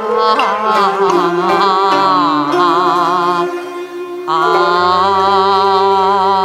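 Cantonese opera song accompaniment: an instrumental ensemble playing a melodic interlude between sung lines, a wavering line with strong vibrato over sustained lower notes. It dips briefly about four seconds in, then picks up again.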